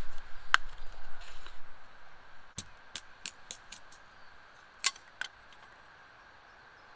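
Dry split kindling sticks knocking and clacking against each other as they are handled, about eight sharp wooden knocks spread over a few seconds, after a stretch of rustling.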